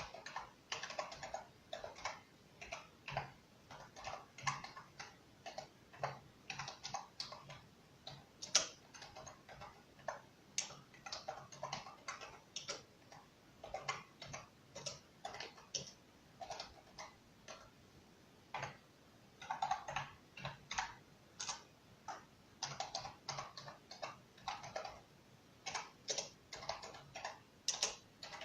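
Slow typing on a computer keyboard: separate key clicks, about two or three a second, with short pauses between groups.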